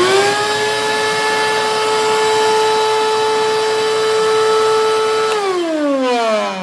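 Wet/dry shop vacuum's motor whine climbs quickly to a steady high pitch and holds there. About five seconds in, it is switched off and the whine falls away as the motor winds down.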